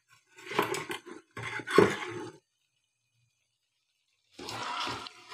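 Metal ladle scraping and knocking against a metal kadhai while ghee is stirred into cooked mutton, in three short bursts.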